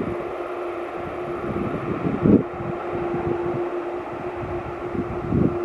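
Jet engines of a four-engined KLM Boeing 747-400 running as the airliner rolls out on the runway after touchdown. A steady rumble carries a constant hum, with wind gusting on the microphone throughout.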